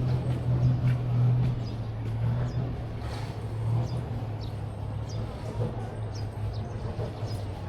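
A vehicle engine running close by, a steady low hum that fades after about four seconds. Small birds chirp over it with short, high, repeated calls.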